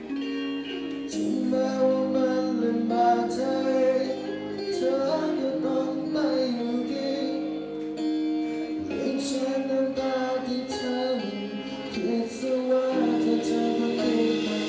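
Live band music: a singer singing a Thai pop-rock song into a microphone, backed by electric guitar and drums.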